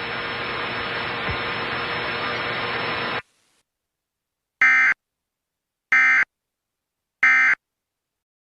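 Steady radio static hiss that cuts off abruptly about three seconds in. After a short silence come three short, identical data-tone bursts about a second and a quarter apart, louder than the hiss: the Emergency Alert System end-of-message (EOM) code that closes an EAS alert.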